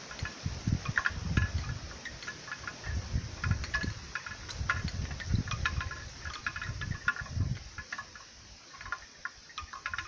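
Gusts of a night windstorm in the rainforest, swelling and fading every second or two as low rumbles on the microphone. Many quick clicks and ticks run through it throughout.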